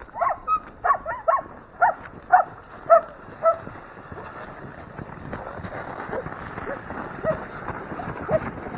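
A harnessed team of sled dogs barking and yipping in excitement as the team is led out. A quick run of loud barks fills the first few seconds, then fewer barks over a busier background.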